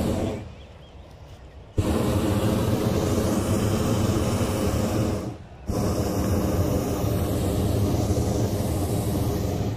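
Hot-air balloon propane burner firing in long blasts. A blast dies away just after the start, a new one cuts in abruptly a little under two seconds in and fades about five seconds in, and another cuts in half a second later and stops at the very end.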